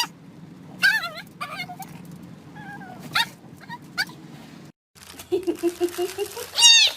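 A dog whining with short high yips, about half a dozen over the first four and a half seconds. After a sudden break about five seconds in comes a low steady droning tone, and near the end a loud drawn-out high call, a cat starting to meow.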